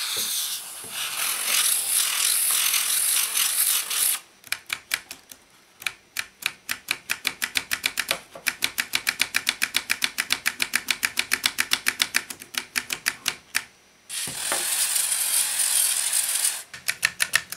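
Aerosol contact cleaner spraying in a hiss for about four seconds, then a fast, even run of clicks, several a second, as a control on the valve recorder's board is worked back and forth to clean its sliding contact. A second spray of about two seconds comes near the end, followed by a few more clicks.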